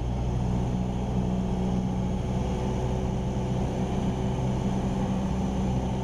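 Cessna 172 Skyhawk's four-cylinder Lycoming engine and propeller running steadily in cruise flight, heard inside the cockpit as an even hum at a constant pitch.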